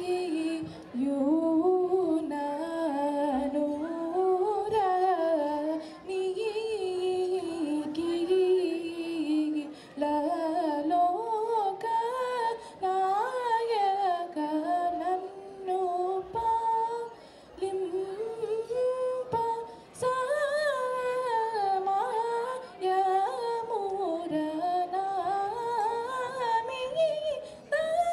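A girl singing a Telugu song solo into a microphone: a single melodic voice with gliding, held notes, in phrases of a few seconds separated by short breaths.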